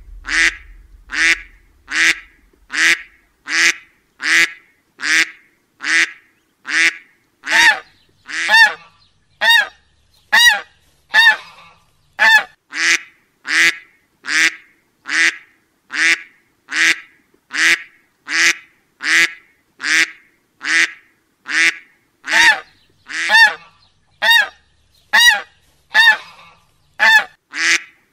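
A duck quacking, one short nasal quack repeated at an even pace a bit more than once a second, like a looped recording.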